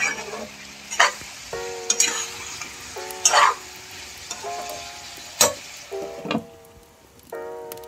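Metal spatula stirring aloo gobhi (potato and cauliflower) in a non-stick kadai, knocking and scraping against the pan about once a second while the vegetables sizzle.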